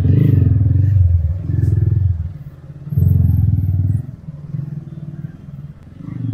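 Motorcycle engine running on the move, its low rumble swelling and easing in surges, strongest in three pushes over the first four seconds.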